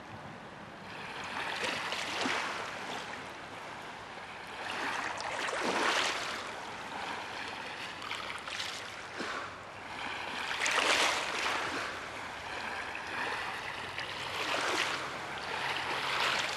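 Shallow stream water running over a bed of rounded pebbles: a steady rushing wash that swells and eases about every four seconds.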